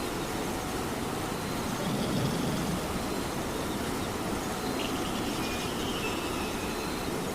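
Steady rain falling, an even hiss of noise, with a low swell about two seconds in and a faint high call about five seconds in.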